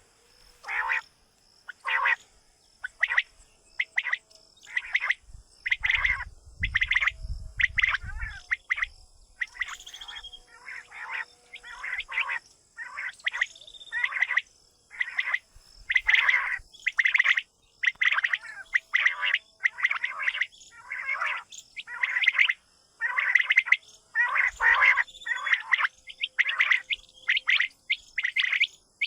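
Quail calling over and over, sharp calls coming about once a second, with a faint steady high whine behind them.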